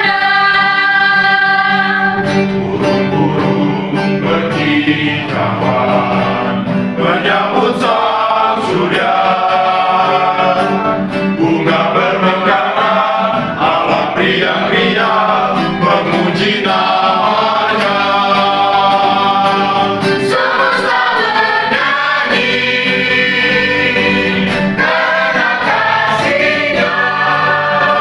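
A mixed group of women and men singing an Indonesian worship song together, accompanied by a strummed acoustic guitar.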